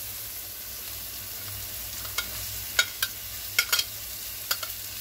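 Onions and capsicum sizzling in oil in a kadhai. In the second half a metal spatula clicks sharply several times against the plate and pan as chopped beans are scraped in.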